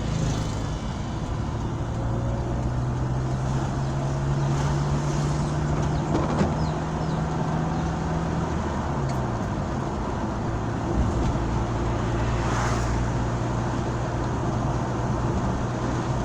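Motor vehicle engine and road noise running steadily. The engine pitch drops about nine seconds in, as when it shifts gear or eases off.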